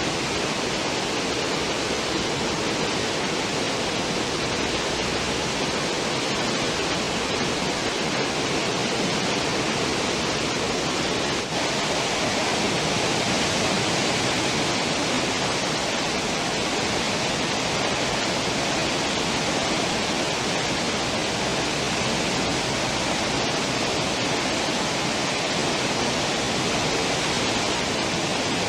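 Steady, even rush of churning seawater in a cruise ship's stern wake.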